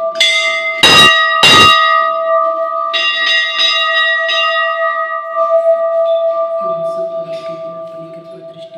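Large brass temple bell struck repeatedly by its clapper, about five strokes in the first five and a half seconds, the two loudest close together about a second in. The bell rings on and slowly dies away.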